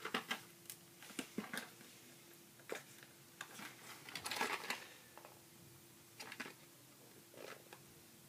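Plastic retail packaging of an iPhone bumper being handled and turned over by hand while looking for how to open it: scattered light clicks and taps, with a longer scraping rustle about four seconds in.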